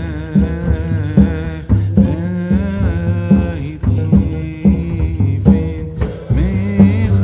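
Background music with a steady beat, deep bass notes and a gliding melody line.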